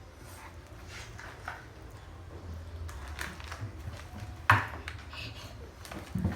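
Kitchen dishes and utensils clinking and knocking, with one sharp clatter about four and a half seconds in, over a steady low hum.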